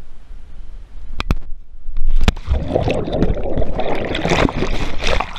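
Two quick knocks, then a loud splash about two seconds in as a jumper hits the water, followed by underwater bubbling and rushing as the action camera goes under with him.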